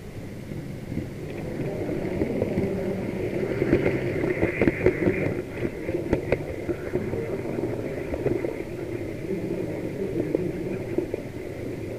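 Running noise of an H0 model locomotive picked up by a camera riding on it: a steady motor hum and wheels rattling on the track, with a burst of sharp clicks over rail joints and points about four to six seconds in.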